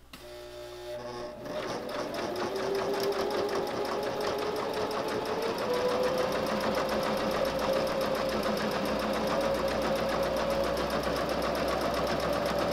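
Domestic electric sewing machine top-stitching through layered fabric: the motor speeds up over the first couple of seconds, its whine rising, then runs at a steady speed with a rapid, even patter of needle strokes.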